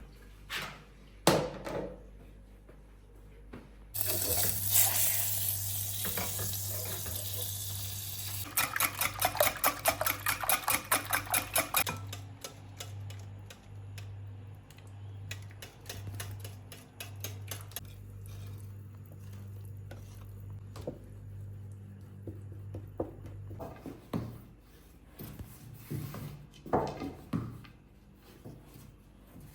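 Water running from a tap for several seconds, with a fast rhythmic clatter of about three to four strokes a second near the end of the running, then scattered clinks and knocks of dishes and pots.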